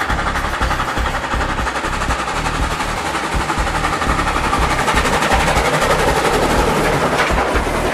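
Model railway trains running along the layout's track: a fast, even clicking rattle that grows a little louder about halfway through.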